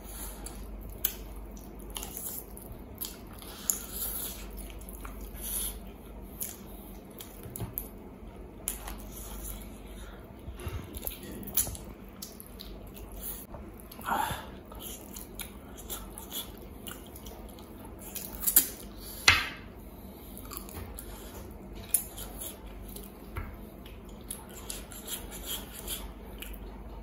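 Close-miked eating: a man biting and chewing meat off a mutton leg, with many short wet mouth clicks and smacks. A few louder smacks come about 14 and 19 seconds in.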